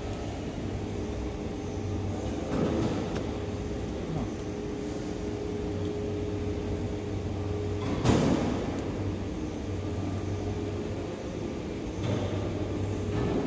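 Steady machine hum with a constant low tone, broken by a few brief rustling bursts, the loudest about eight seconds in.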